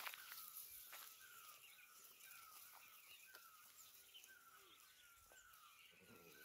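Faint bird call, a short falling note repeated about twice a second, over scattered light clicks and a sharp tap at the very start.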